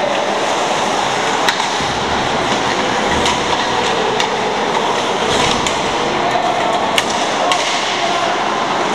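Ice hockey play on the rink: a steady scraping hiss of skates and arena hubbub, broken by sharp clacks of sticks, puck and boards, the loudest about a second and a half in and again about seven seconds in.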